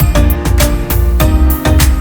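Background music: plucked-string instrumental with a steady beat and bass.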